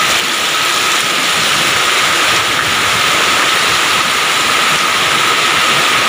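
Heavy rain pouring down in a steady, loud hiss, with a faint thin high tone running through it.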